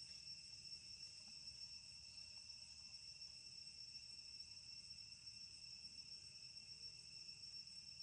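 Faint, steady high-pitched chorus of insects droning without a break, over a soft low rumble.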